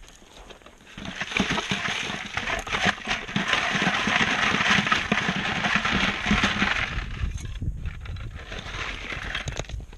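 Damp gravel rattling and grinding against a metal classifier screen with half-inch mesh: a dense clatter of small stones that starts about a second in and eases off after about six seconds.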